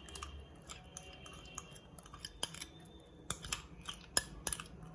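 Irregular light clicks and taps of a metal spoon against a metal pressure-cooker pot as ghee is spooned into thick haleem, growing more frequent from about three seconds in.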